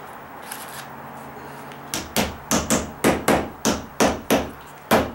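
Claw hammer tapping a metal lid down onto a paint can, a quick, even run of taps about three a second that starts about two seconds in.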